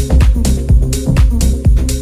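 Progressive electro house music: a steady four-on-the-floor beat at about two beats a second over a heavy bass line.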